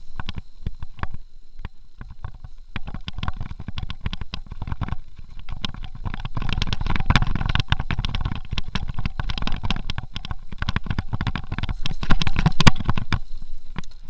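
Mountain bike riding fast over rough dirt singletrack: a constant clatter of knocks and rattles as the tyres and frame hit roots and bumps, over a low rumble of wind on the microphone, with a harder knock near the end.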